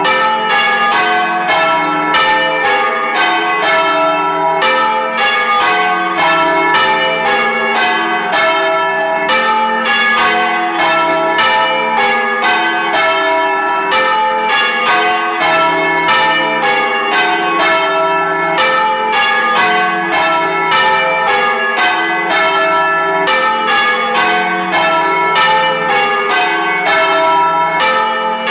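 Church bells ringing, a steady run of strikes several a second with the tones of successive bells overlapping.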